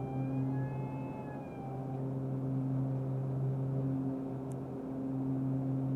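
Beechcraft King Air's twin turboprop engines and propellers droning steadily in the cockpit during the initial climb, with a steady low hum and a higher whine that stops about two seconds in.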